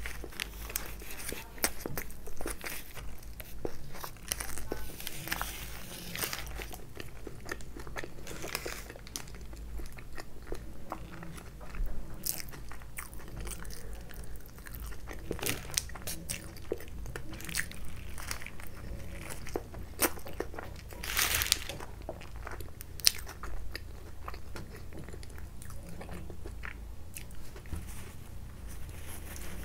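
Close-up eating sounds from a toasted Subway sandwich: repeated bites with crunching and chewing, made up of many irregular sharp clicks with a few longer noisy bursts.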